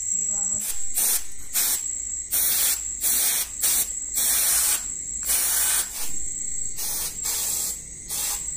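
Paint sprayer hissing in short, irregular bursts, about two a second, as colour is sprayed onto clay Ganesh idols.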